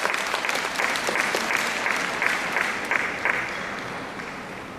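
Audience applauding, a dense patter of many hands clapping that fades away over the last second or so.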